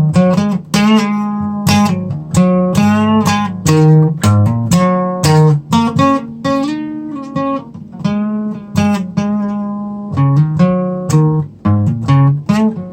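Acoustic guitar strummed in a steady rhythm, chords ringing between strokes: an instrumental break in the song.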